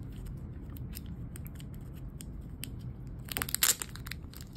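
Thin clear plastic sleeve crinkling as fingers work it open around a card: faint light ticks at first, then a burst of crackling about three seconds in.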